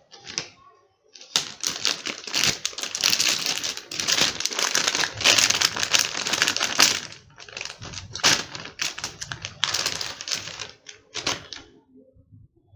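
Metallized anti-static bag crinkling and rustling in the hands as a motherboard is pulled out of it: a dense, crackly rustle that thins out and stops shortly before the end.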